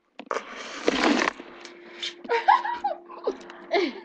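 Girls laughing and giggling: a breathy, hissing laugh first, then short high giggles.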